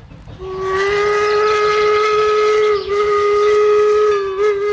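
A vintage 4-4-0 steam locomotive's whistle blowing one long, loud blast that starts about half a second in. It wavers briefly twice.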